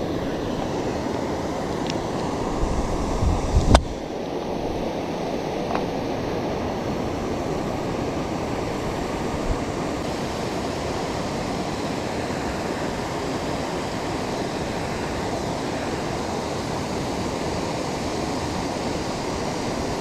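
Steady rush of water pouring over a river waterfall, an even wash of noise. About three seconds in there is a brief low buffet that ends in one sharp click.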